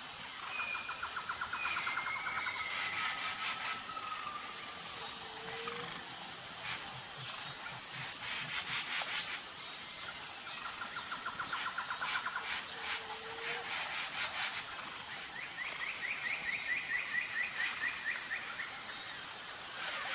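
Tropical forest ambience: a high, evenly pulsing insect chorus runs throughout while birds call over it, with rapid trills three times and a short whistle near the start. A few brief clusters of clicks come in about halfway through.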